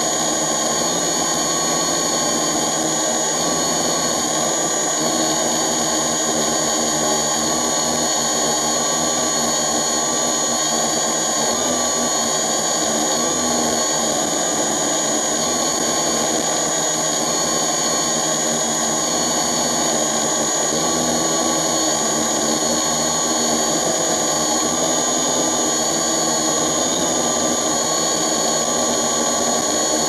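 Camera drone's propellers and motors running steadily in flight: a constant buzzing whine with a high steady tone, its pitch wavering slightly as the motor speeds change.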